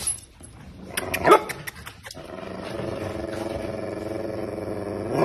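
Small dog growling: a short sharp call about a second in, then a long steady rumbling growl for about three seconds that the owner calls its 'exhaust sound', ending in a short bark.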